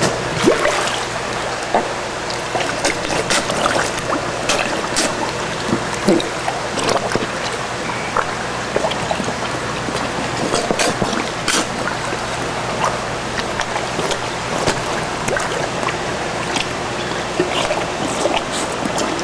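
Large koi splashing and slurping at the water surface as they suck food from a baby bottle: irregular wet smacks and splashes over a steady rush of water.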